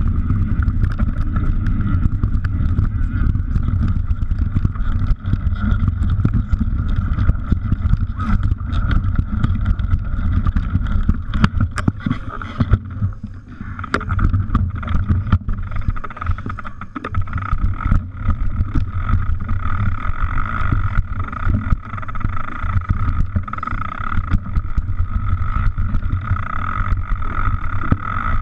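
Mountain bike riding a rough dirt trail, heard from a camera on the bike or rider: wind rumbling on the microphone, with many rattles and knocks from the bike over rocks and roots. About halfway in it briefly goes quieter, and the low rumble stays weaker after that.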